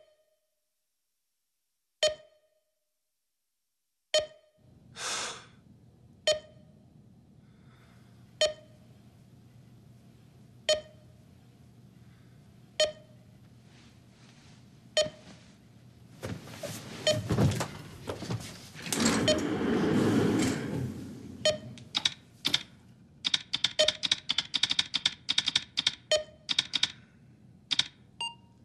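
An electronic alarm beeps once about every two seconds, with a low steady hum coming in after a few seconds. Over the last third come knocks and movement noise, then rapid typing on an old computer keyboard near the end.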